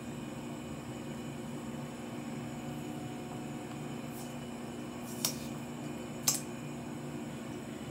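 A couple of sharp clicks from a skincare bottle being handled and dispensed into the hands, over a steady low background hum.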